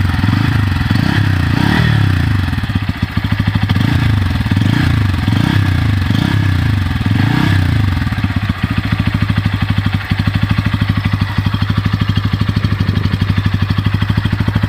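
Bajaj Pulsar N160's single-cylinder engine running, revved in several short throttle blips over the first eight seconds or so, then settling to a steady idle.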